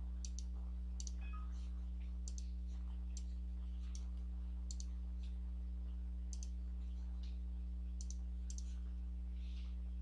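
Computer mouse button clicks: about a dozen sharp clicks, several in quick pairs, over a steady low electrical hum.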